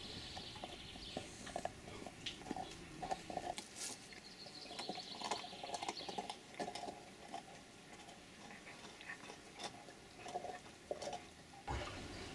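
Irish Wolfhound puppy chewing and gnawing on something, with faint scattered crunches and clicks.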